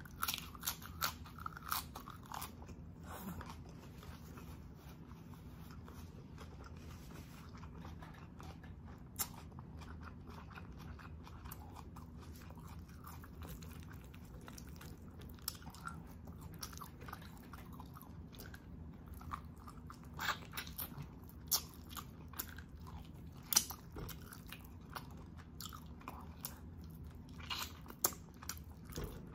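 Close-miked eating: crunchy bites and chewing of a raw lettuce leaf in the first few seconds, then quieter chewing with scattered short mouth clicks, which come thicker again near the end as braised oxtail is eaten.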